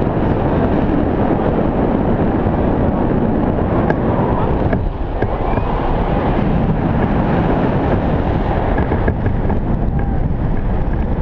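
Airflow buffeting the microphone in flight under a tandem paraglider: a loud, steady rushing roar, easing briefly about five seconds in.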